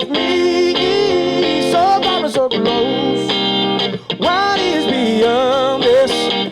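Live blues-soul song with guitar accompaniment and a voice singing a held, wavering melody without clear words.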